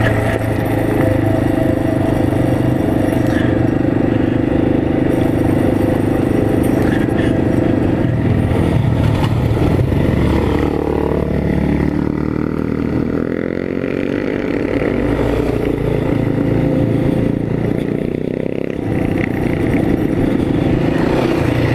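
Engine of an off-road trail vehicle running as it is ridden along a trail, with a steady note that shifts up and down in pitch through the middle as the throttle changes, then settles again.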